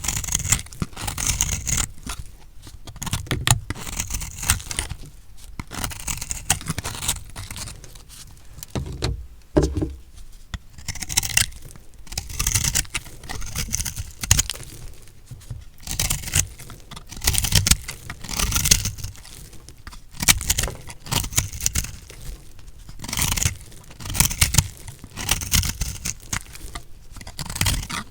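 Knife cutting through a block of recycled soap: a crunchy, scraping stroke repeated every second or two.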